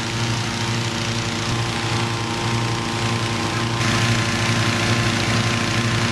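Petrol-engine inflator fan running steadily, its engine hum mixed with the rush of air blowing into a hot-air balloon envelope during cold inflation. The sound gets a little louder and brighter about four seconds in.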